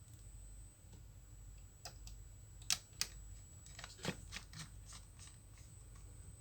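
Small sharp clicks and taps of laptop parts being handled during reassembly: two louder clicks a little under three seconds in, then a quick run of lighter clicks and taps.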